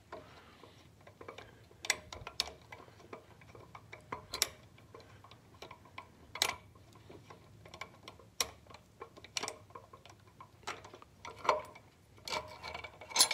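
Irregular light metallic clicks and taps, a few louder ones and a quick cluster near the end, as a tight bolt is worked loose from the throttle body's spacer and cable bracket.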